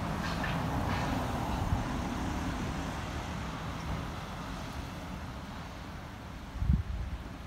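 Road traffic on a town street: vehicles passing with a steady tyre-and-engine rumble, louder in the first two or three seconds and then easing off. A brief low thump comes near the end.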